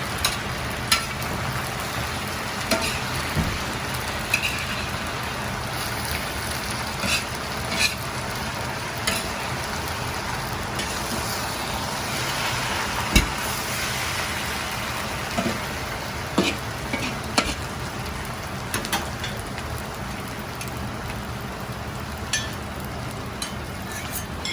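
Chicken sizzling in a wok as it is stir-fried, with sharp clanks of the metal ladle against the wok scattered throughout.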